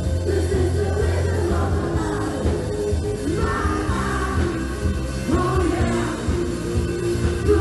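Live pop-rock band playing keyboard, bass guitar and drums under a sung vocal, with a strong, steady bass.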